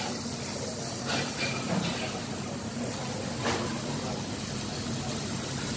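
Masala-coated pineapple pieces sizzling as they are laid on a hot, buttered flat-top griddle: a steady hiss, with a few short sharp sounds about one, two and three and a half seconds in.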